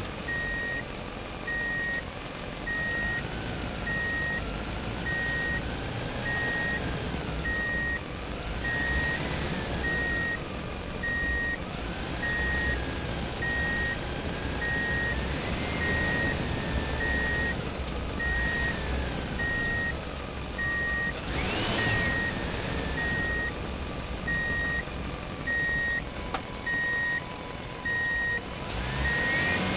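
Electronic reversing-style beeps repeating about once a second, over warbling siren-like electronic tones and a low rumble: vehicle sound effects.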